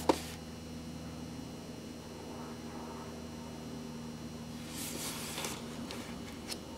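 Steady faint electrical hum, with a sharp click just after the start, a brief rustle of handling about five seconds in and a small click near the end.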